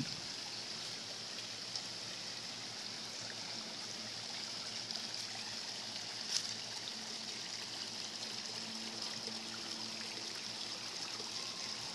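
Steady trickle of running water at a pond.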